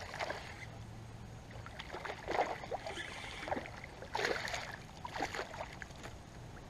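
Hooked largemouth bass splashing at the water's surface as it is reeled in, in several short irregular splashes.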